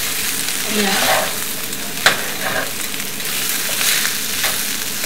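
Potato masala filling sizzling as it fries in a stainless steel pan while a metal spatula stirs and scrapes through it. A single sharp clink of the spatula against the pan comes about two seconds in.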